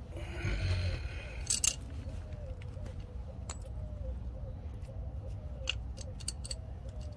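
Light metallic clinks, loudest a sharp double clink about a second and a half in, followed by scattered lighter ticks over a steady low outdoor rumble.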